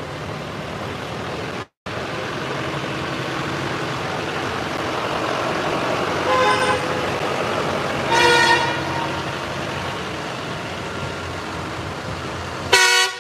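Farm tractors driving past in a convoy, a steady engine and tyre rumble, with vehicle horns tooting: a short toot about halfway through, a longer one soon after, and a loud blast right at the end. The sound cuts out for a moment near the start.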